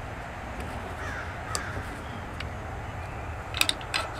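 Two quick groups of sharp metallic clicks near the end, from the Martini-Henry rifle's trigger and cocking-indicator parts being fitted together by hand, over steady outdoor background noise. A bird calls faintly about a second in.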